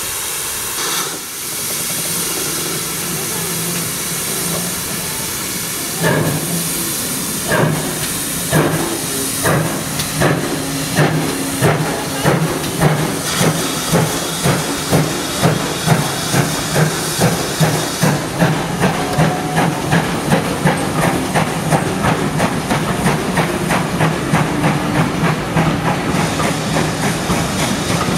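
GWR 5700 Class pannier tank steam locomotive pulling away from a stand with its train. A steady hiss of steam comes first, then exhaust beats begin about six seconds in, slow and heavy at first and quickening steadily to about three a second as it gathers speed. The high hiss eases about two-thirds of the way through.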